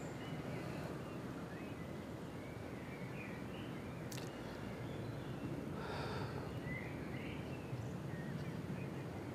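Outdoor ambience: a steady low background noise with a few short, high chirps scattered through it.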